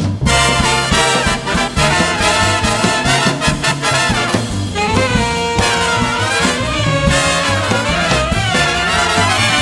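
Jazz big band playing a swing arrangement, led by the trumpet and trombone section, with quickly moving notes over drums and a stepping bass line.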